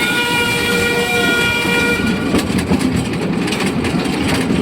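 Amemiya No. 21 forest railway steam locomotive sounding its steam whistle, one steady blast of about two seconds, over the continuous rumble and rail clatter of the moving train.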